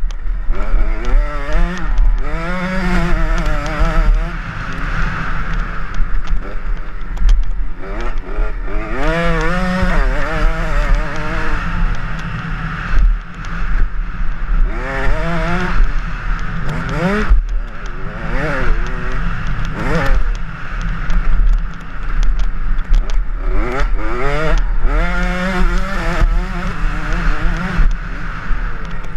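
Dirt bike engine revving hard while racing on a motocross track, its pitch climbing through each gear and dropping at the shift, again and again. A constant low rumble of wind buffets the helmet-mounted microphone.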